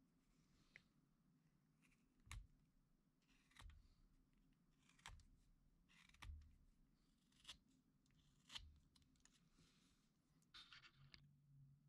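Carving knife whittling a small block of wood: faint short slicing cuts, about eight of them, one every second or so.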